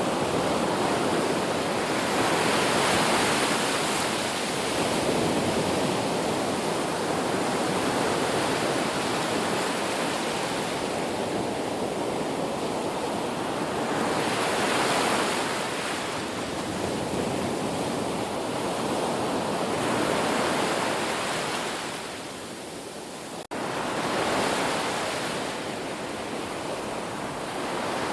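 Ocean waves breaking and washing in, a steady rushing that swells and eases every few seconds, with one sudden brief dropout about two-thirds of the way through.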